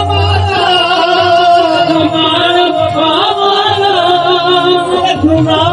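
Man singing a Saraiki Sufi kalam in long, wavering, ornamented lines, with instrumental accompaniment.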